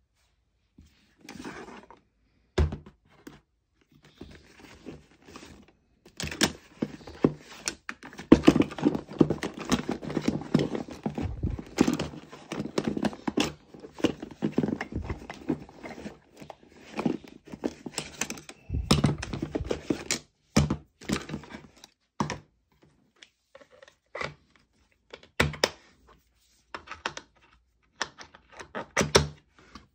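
Hands handling a cordless drill driver and its detachable chuck heads: knocks, clicks and rustling as the tool is pulled from a fabric tool bag and the heads are pushed into a plastic chuck holder. The knocking and rustling is thickest in the first half, then thins to scattered sharp knocks.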